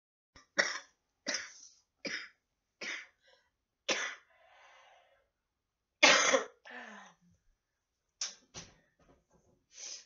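A woman's repeated chesty coughs from a lung infection, unproductive: she cannot bring up the phlegm. They come about one a second at first, the loudest is into her elbow about six seconds in, and a few more follow near the end.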